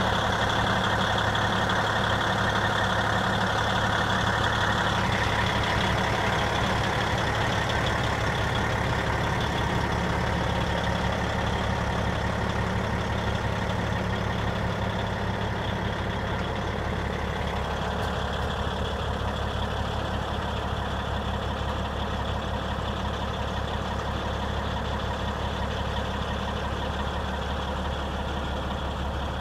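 Caterpillar C-15 inline-six diesel of a 2006 Peterbilt 379 truck tractor idling steadily, slowly getting a little quieter.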